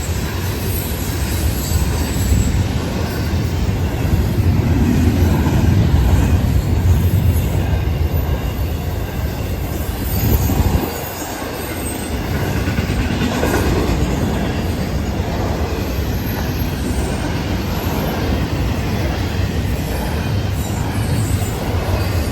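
Florida East Coast Railway freight train rolling past, a continuous rumble of freight cars' wheels on the rails, dipping briefly about halfway through.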